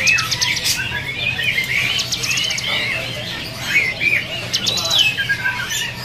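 Many caged songbirds chirping and calling over one another, with short rapid trills about two seconds in and again near the end. Under them runs a steady low hum.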